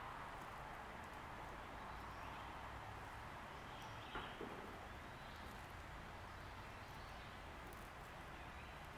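Faint, steady outdoor background hiss and low rumble, with one brief faint click or rustle about four seconds in.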